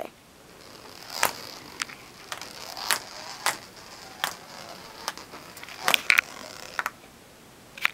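Metal ball rolling down through ribbed plastic pool tubing in a homemade marble-run roller coaster. It makes a faint steady high hiss of rolling friction, with a string of irregular clicks and knocks as it runs through the hills and loops.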